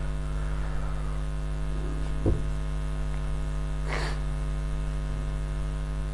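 Steady electrical mains hum with many evenly spaced overtones. Over it, faint whiteboard marker strokes, with a soft knock about two seconds in and a short scratchy stroke about four seconds in.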